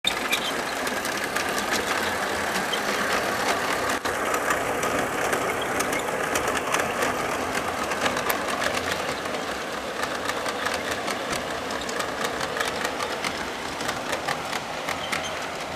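Model train running along the track: a steady mechanical whirr with a dense, irregular clicking and rattling of wheels on rail. It eases off slightly toward the end as the train moves away.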